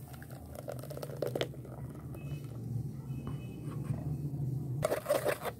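Blended watermelon milkshake being poured in a stream into a fine wire-mesh strainer, a soft pouring and splashing over a steady low hum. Near the end a spoon starts rubbing against the mesh.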